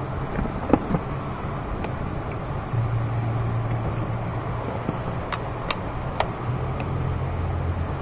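A few short clicks and taps of hoses and clamps being handled while the air-intake plumbing is refitted on an engine, over a steady low mechanical rumble that swells and fades in the background.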